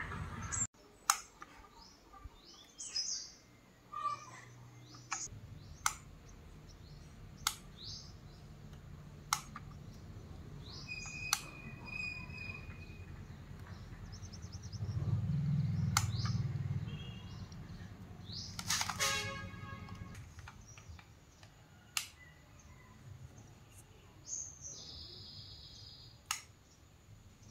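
Small birds chirping intermittently, with scattered sharp clicks and a low hum that swells for a couple of seconds in the middle.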